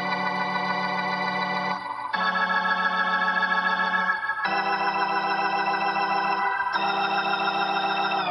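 Electronic organ playing four held chords, each about two seconds long with a short break between them, as a song's intro.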